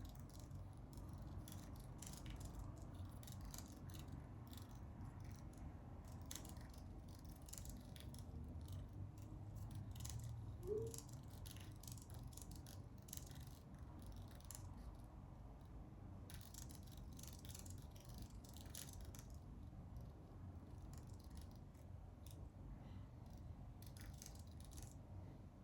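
Quiet room tone with a low hum and scattered faint light clicks and ticks, and one short rising squeak about eleven seconds in.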